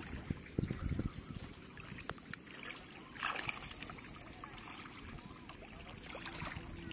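Hands sloshing and splashing in shallow muddy paddy water while groping by hand for fish in the mud, with a brief louder splash about three seconds in.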